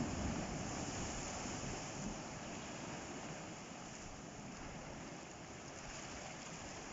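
Sea waves washing against a rocky shore: a steady rushing surf that eases slightly after the first couple of seconds.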